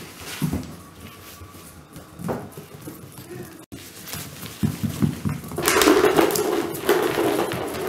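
Wheaten terrier puppy playing with fleece rope toys on a wood floor: scuffling, mouthing and shaking the toy, with scattered soft knocks. The sound grows to a louder, rough stretch about two-thirds of the way in.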